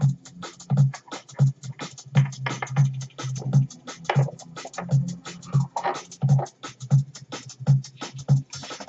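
Background electronic music with a steady beat: low thumps and fast sharp ticks, with a few short sweeping sounds over them.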